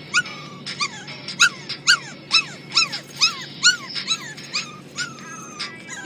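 Boston terrier 'singing' in a string of short high yips and whines, about two a second, each rising then dropping in pitch, along with a phone ringtone's pop music. A steady low car hum runs underneath.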